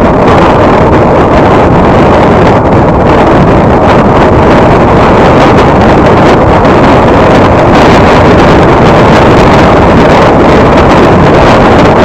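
Car driving at highway speed, heard from inside the cabin: loud, steady rushing road and wind noise.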